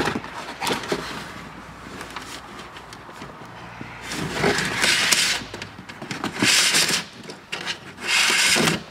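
Wiring harness being pulled out through the speaker opening of a car door, the cables and hand rubbing and scraping against the metal door shell: small clicks, then three louder rasping rubs of about a second each in the second half.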